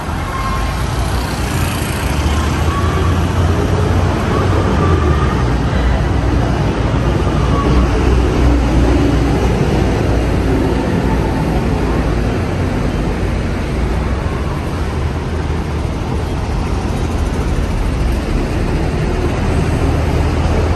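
Street traffic noise, a steady wash of engine and tyre sound with a strong low rumble throughout.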